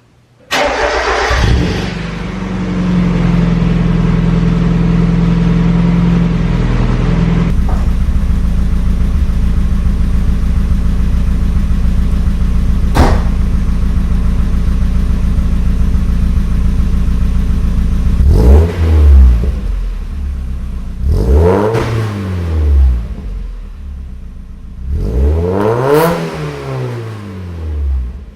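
NA Mazda Miata four-cylinder engine running through a Yonaka cat-back exhaust: a steady idle, then revved three times near the end, each rev rising and falling back.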